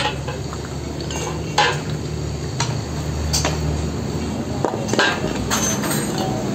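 Steel suspension strut parts clinking and clanking as the strut assembly is taken apart: top mount, spring seat and strut body knocking against each other and the ground. There are about half a dozen sharp metallic clinks, roughly a second apart, over a steady low hum.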